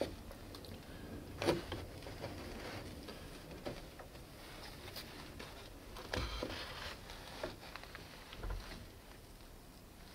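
A few scattered rustles and soft knocks over a faint steady hiss, the loudest about one and a half seconds in and again around six seconds in.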